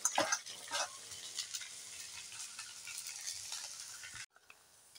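Cut vegetable pieces tossed by hand in a stainless steel colander, a few soft clicks and rustles, over a faint steady sizzle of sesame frying in oil. The sound cuts off abruptly about four seconds in.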